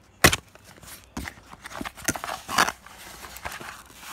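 Cardboard box and packaging being handled and opened: one sharp tap just after the start, then scattered clicks and a stretch of cardboard and foam rustling.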